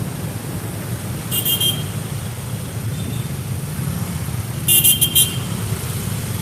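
Road traffic with a steady engine rumble and short, high-pitched vehicle horn toots: one about a second and a half in, then a quick run of three toots about five seconds in.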